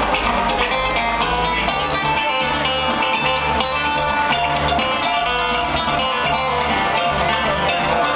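Bluegrass string band playing live: an instrumental passage of plucked acoustic guitar, banjo and mandolin over upright bass, heard through the hall's PA.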